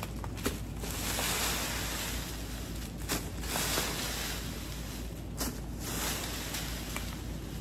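Plastic fan rake swishing and scraping through fallen leaves and broken twigs in repeated strokes, with a few sharp clicks.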